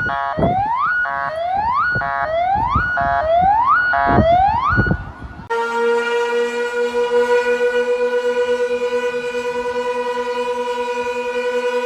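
Electronic emergency-alert alarm tones. A rising whoop-like sweep repeats a little under once a second with low thumps, then about five seconds in it switches to a steady, slightly pulsing buzzy alarm tone.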